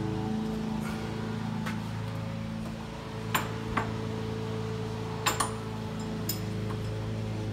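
Background music with a steady low drone, and a handful of sharp metallic clicks and knocks from the middle on: a suspension-trainer's strap buckles and handles clacking against the door as they are let go and handled.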